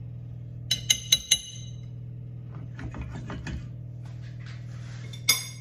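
A metal spoon clinking and scraping against a glass oven dish of potatoes: a quick run of three or four ringing clinks about a second in, softer scraping after, and one more sharp clink near the end, over a steady low hum.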